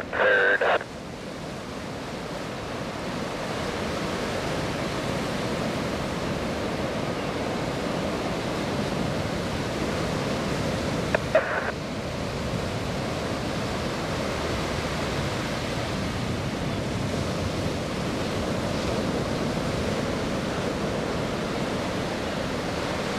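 Steady jet roar of four F-16 Fighting Falcons passing in formation at a distance, building over the first few seconds and then holding even.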